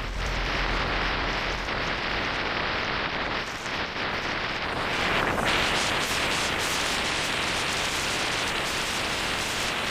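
Steady rushing noise of storm wind and rough sea, the wind buffeting the microphone, with the surf breaking on the shore.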